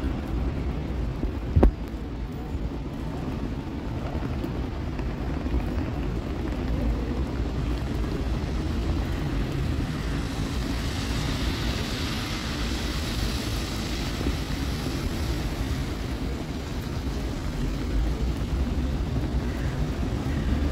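Steady low rumble of city street traffic. A vehicle passes on the wet road about halfway through, its tyre hiss swelling and fading, and there is a single sharp knock near the start.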